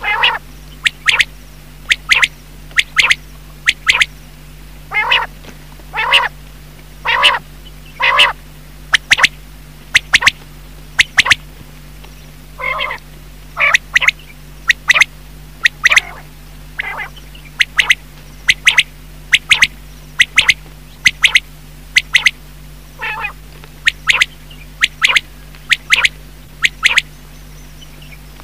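Quail (batair) calling, the kind of recording played as a lure in quail hunting: a long series of brief sharp notes, many in quick pairs, with a few longer wavering notes between them.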